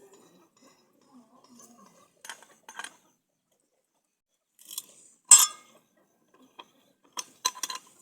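Scattered metallic clinks and knocks of metal parts being handled, the loudest about five seconds in and a quick run of several near the end, with no engine running.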